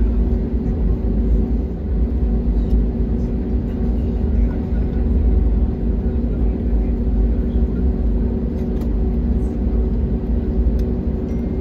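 Cabin noise of an Airbus A320-family jet airliner taxiing on the ground: a steady low rumble of engines at taxi power and the rolling gear, with a constant droning hum over it.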